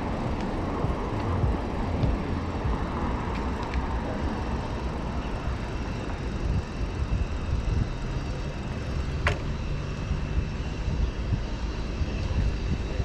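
Wind rumbling on the microphone of a moving bicycle, with street traffic going by. A short, sharp squeak rising in pitch about nine seconds in.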